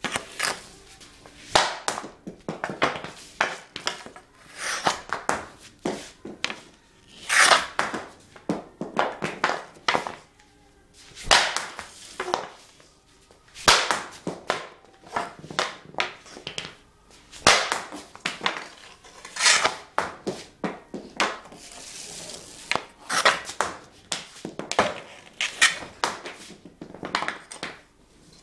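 Hockey shots taken one after another with an EQ40 stick on a concrete floor: the blade slaps the floor and the puck cracks off it and hits the concrete wall. Each shot is a quick cluster of sharp cracks, coming about every one to two seconds and echoing in a bare concrete room.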